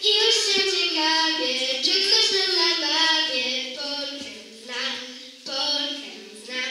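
A child singing a melody, holding notes and sliding between pitches; in the last few seconds the phrases grow shorter and quieter.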